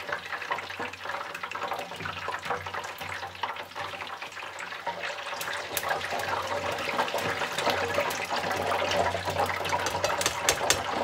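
Hot oil in an electric deep fryer sizzling and crackling as a basket of freshly fried celeriac fries is held above it to drain, oil dripping back into the fryer. The crackling grows louder in the second half.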